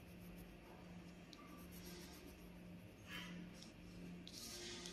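Faint scratching of a coloured pencil on paper as it colours in, with a couple of louder strokes in the second half, over a low steady hum.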